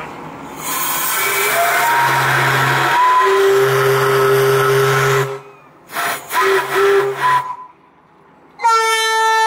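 Vessels' horns and whistles blowing long blasts. A hoarse, whistle-like blast with a shifting pitch lasts several seconds, a shorter blast follows about six seconds in, and a clear, steady, deep horn note starts near the end.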